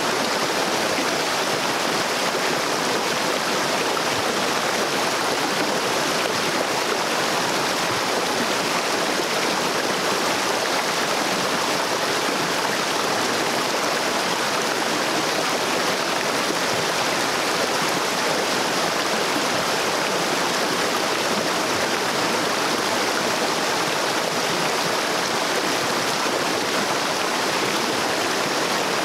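Shallow river running over rocks and gravel: a steady, even rush of flowing water.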